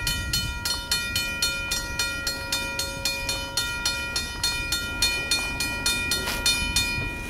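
Railroad crossing warning bell ringing rapidly, about four strikes a second, each strike's tone ringing on between strikes. The ringing stops abruptly near the end.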